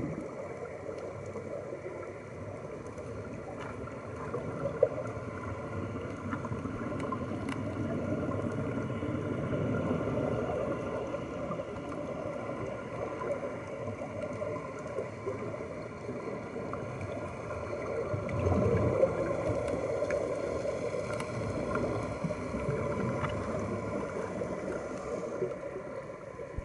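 Underwater ambience picked up by the camera: a steady, muffled rush of water and bubbling from the air-fed dive helmets of underwater scooters. It swells louder about two-thirds of the way through.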